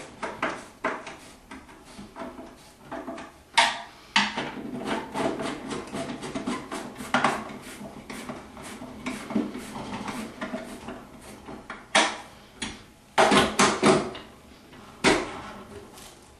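Irregular clicks, knocks and clatter of a vending tower's parts being handled and fitted back together, with sharper knocks about three and a half seconds in and several more between about twelve and fifteen seconds in.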